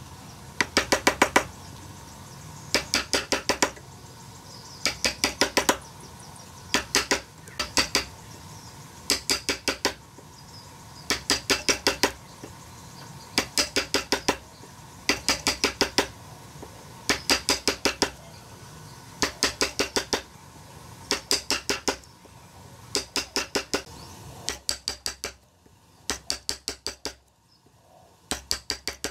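Steel chisel driven into a wooden beam by quick hammer blows, in bursts of about five or six sharp, metallic-sounding taps roughly every two seconds, chopping a row of cuts across the grain to cut out a joint notch.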